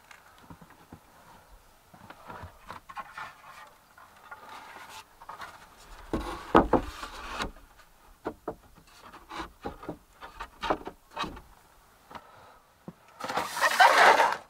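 Wooden floor boards being laid and shifted onto wooden joists: scattered knocks and scraping of board on board, with a heavier cluster of knocks midway and a louder rasping burst near the end.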